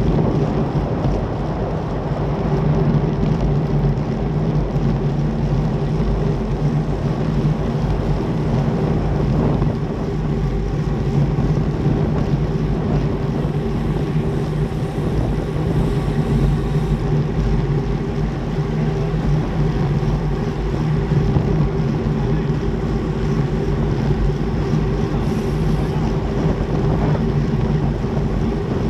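Steady wind rushing over the microphone of a bike-mounted action camera on a road bike moving at about 40 km/h, loud and low.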